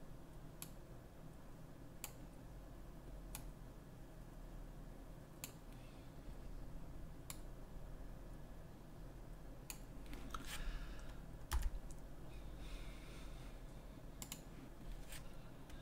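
Scattered single clicks of a computer keyboard and mouse, about ten in all, one every second or two, as objects are scaled, moved and keyframed in the software.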